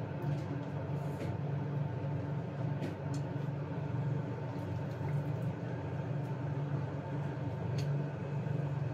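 Steady hum of a kitchen range hood fan running over the stove. A few light clicks of chopsticks and a stainless colander come through as the blanched greens are lifted out of the pot.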